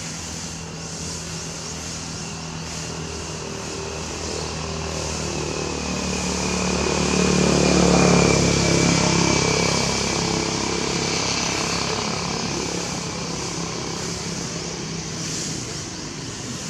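A motor engine passing by: it grows louder, is loudest about eight seconds in, then fades away as it recedes.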